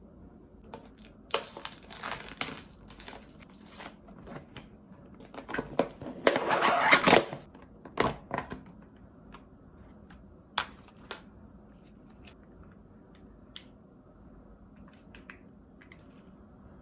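Crinkling and rustling of something being handled in a small room, in two bursts, the louder one about six to seven seconds in, with scattered light clicks and taps in between and after.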